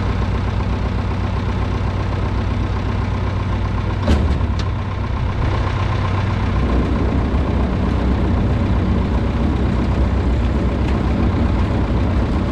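Farm tractor engine running steadily while turning a manure spreader through its PTO shaft. About four seconds in there is a single clunk, and after it the engine note changes as the load comes on.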